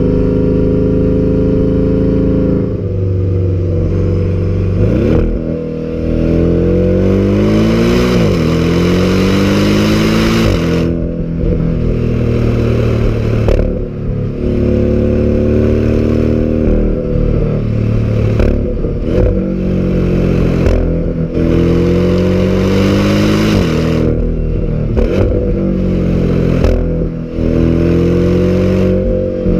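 Porsche boxer engine at full throttle, its pitch climbing through each gear and dropping sharply at every upshift, several hard pulls in a row.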